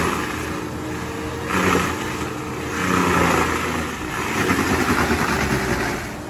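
Kubota SVL95-2s compact track loader's diesel engine running under load, driving a Fecon forestry mulcher head that grinds into a standing tree trunk. A harsh grinding hiss swells about a second and a half in, and again from about three seconds until near the end, fluttering rapidly as the teeth bite.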